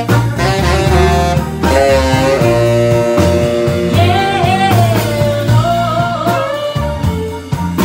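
A live blues band playing: a woman sings the lead over strummed guitars and a saxophone.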